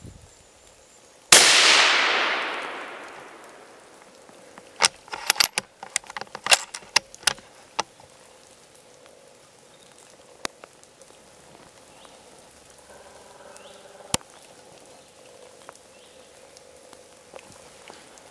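A single shot from a .223 Remington Tikka rifle about a second in, its report dying away over about two seconds. A few seconds later comes a quick run of sharp clicks and knocks, then a couple of single ticks.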